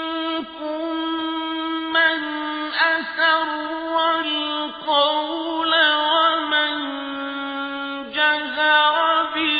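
A man's voice reciting the Quran in melodic chant. He holds long steady notes and turns them with wavering ornaments, pausing briefly for breath between phrases.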